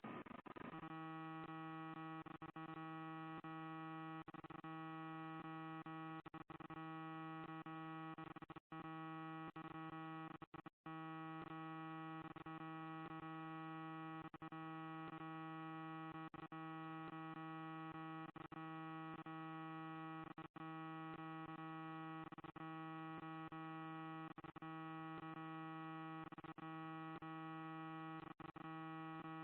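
Faulty audio from a Ring Floodlight Cam's failed microphone: a steady electronic hum of many fixed tones stacked together, starting about half a second in. It does not change, except for a few brief dropouts.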